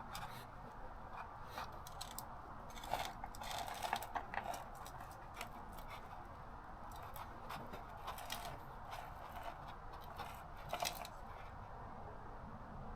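Faint scraping and picking as old cracked foam surround and glue are worked off a car woofer's paper cone by hand, with scattered short clicks and scrapes that come in small clusters.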